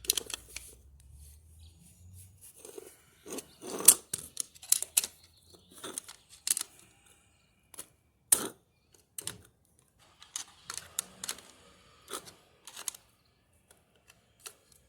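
Top-load washing machine parts being handled and fitted together by hand: a run of irregular clicks, clinks and light knocks with short pauses between them.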